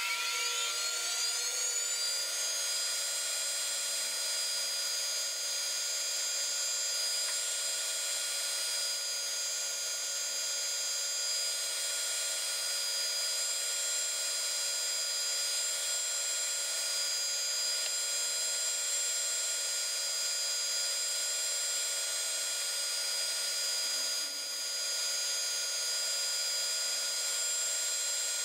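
Electric scroll saw motor coming up to speed, its whine rising in pitch over the first couple of seconds, then running steadily while a light guide panel is fed into the blade.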